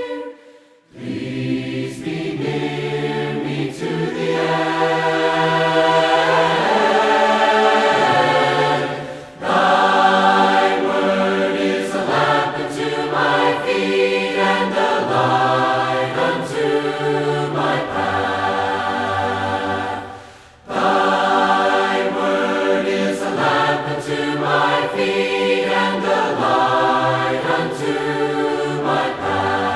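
A group of voices singing a hymn a cappella in harmony, without instruments, as is the practice in Churches of Christ. The phrases are long and held, with brief breaths between them about a second in, near nine seconds and near twenty seconds.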